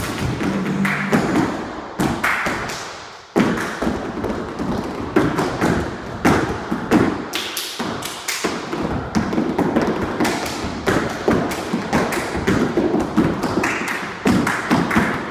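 Tap shoes striking a wooden floor in quick, rhythmic runs of taps and stamps from two dancers, with music playing underneath. The taps die away briefly about three seconds in, then start again with a loud stamp.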